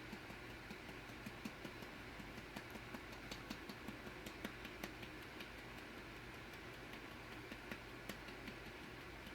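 Faint, irregular light clicks and taps, a few a second, over a low steady hum.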